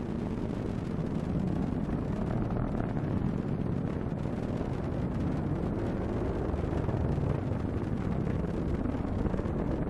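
Atlas V rocket's RD-180 first-stage engine heard from the ground during ascent: a steady, deep rumbling noise.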